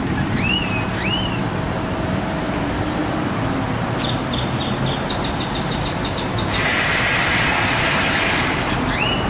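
Steady outdoor traffic-type rumble and hiss, with three short rising chirps. About six and a half seconds in, a louder steady hiss sets in.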